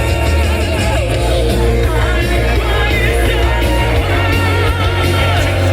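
Loud heavy metal music with a singer's voice over heavy, steady bass, the sung notes wavering with vibrato.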